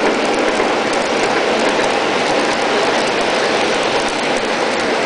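O-gauge model passenger train rolling past on three-rail tinplate track, a steady rolling rumble of metal wheels on the rails.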